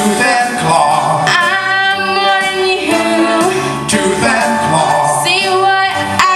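A woman singing into a microphone over instrumental accompaniment, holding long notes that waver with vibrato.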